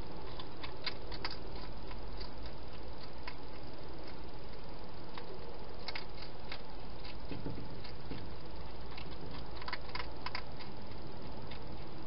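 Hedgehog eating from a bowl inside a plastic feeding box: irregular sharp crunching clicks, bunched about a second in, around six seconds and around ten seconds, over a steady low hiss and hum.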